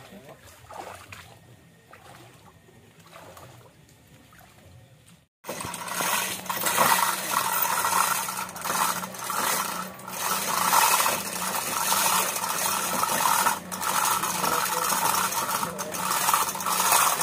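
Chain block's chain rattling and clinking in a dense run of small clicks, taking the weight of a truck engine as it is lowered into a boat's hull. It starts suddenly about five seconds in, after a quieter stretch.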